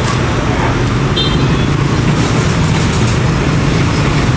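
Steady street traffic noise with a low engine hum. A brief high beep sounds about a second in.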